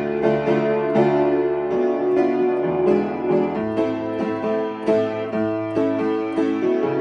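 Upright piano played in a steady rhythm: chords over a root note held in the bass that changes every second or two, an example in A minor.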